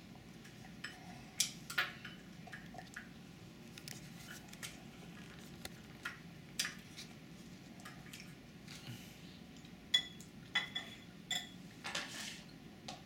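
A toddler sipping and slurping from a small bowl, with scattered light clicks and taps of the bowl, growing into a quicker run of sharper clinks near the end.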